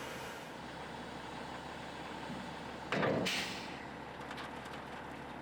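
Heavy diesel engine running steadily in the background, with a brief loud hiss of air about three seconds in.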